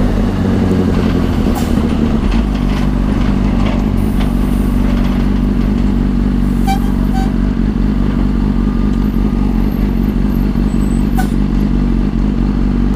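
Sport motorcycle engine running at low, steady revs while creeping along in slow traffic; the engine note drops and settles about two seconds in.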